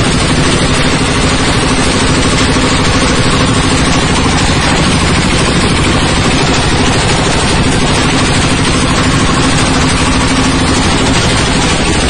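Coconut-husk fibre decorticating machine running under load: a loud, steady, dense rattling din as it shreds husk into coir fibre, with a steady hum underneath.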